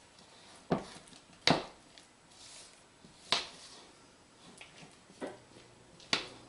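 Spatula stirring thick muffin batter in a mixing bowl, folding in blueberries: about five sharp knocks of the spatula against the bowl, spread unevenly, with soft scraping between.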